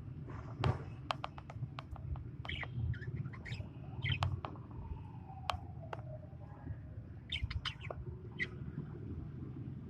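Lovebirds chirping in short, scattered calls, mixed with many sharp clicks.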